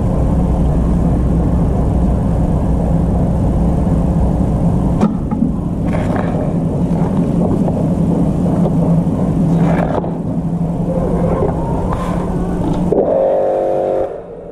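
A motor running steadily with a low, even hum. Near the end a short higher-pitched tone rises over it, then the running sound drops off sharply.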